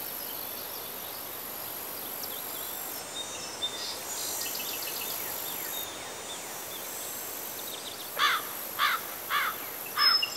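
Field ambience: a steady high insect drone and hiss with scattered faint bird chirps. In the last couple of seconds a bird calls in a run of loud downward-slurred notes, about two a second.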